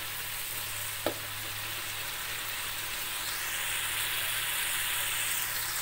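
Ground spice paste sizzling in hot oil in a metal wok as it is stirred with a metal spatula. The spatula knocks once on the wok about a second in, and the sizzle grows slightly brighter and louder after about three seconds. This is the paste being sautéed until fragrant and almost cooked.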